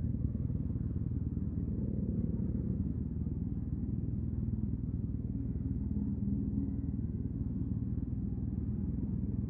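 Yamaha TMAX 560's parallel-twin engine running steadily at low revs through an Akrapovic carbon full-system exhaust.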